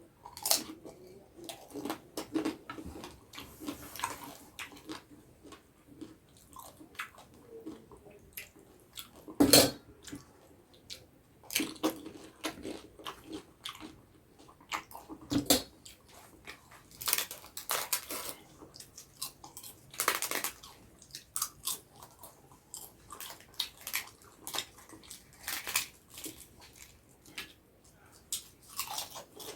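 Close-miked eating: crisp food crunching between the teeth, with wet chewing between irregular bites. The loudest crunch comes about ten seconds in.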